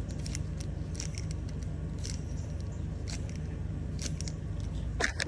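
Brake caliper piston being pressed back with a hand-squeezed brake pad spreader tool, giving a few sharp clicks about once a second over a steady low hum.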